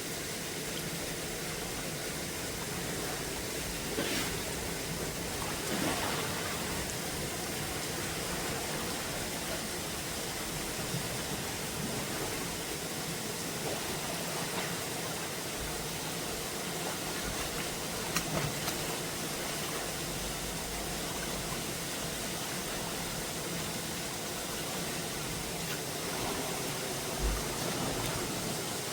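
Steady rain, an even constant hiss, with a few faint knocks scattered through it.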